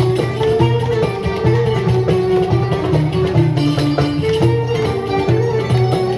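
Instrumental Middle Eastern ensemble music: a plucked-string melody, as from oud and qanun, over a steady low pulse.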